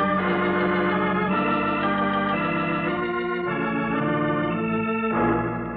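Organ music bridge: a run of held dramatic chords that shifts every second or two and softens near the end, marking a scene change in the radio drama.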